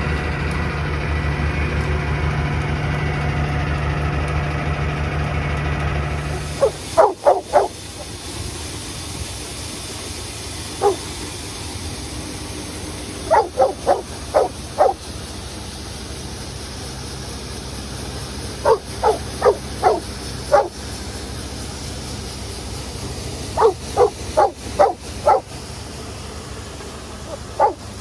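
A John Deere 6620 combine's engine running steadily for about six seconds. Then a dog barks in quick runs of four or five short barks, several times over, with single barks between, over a lower steady machine hum.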